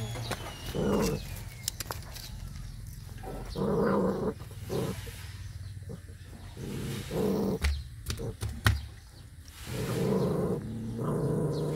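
A puppy growling over its food in several short bursts, a couple of seconds apart, with scattered sharp clicks from eating.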